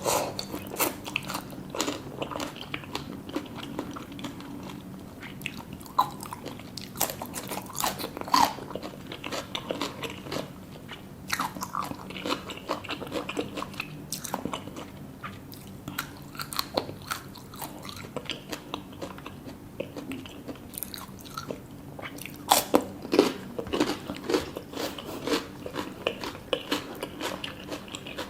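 Close-miked eating sounds: people chewing and crunching food, a dense run of irregular crisp bites and mouth clicks, with a few louder crunches late on.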